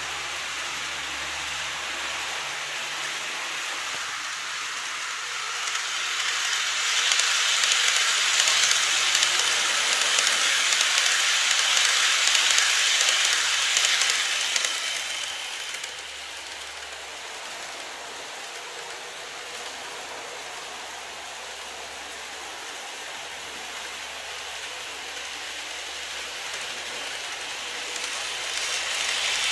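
N-gauge model trains running on the track: the whirring, hissing roll of a model E233-series train swells as it passes close by and then fades. Near the end, the same sound rises again as a model E351-series train approaches.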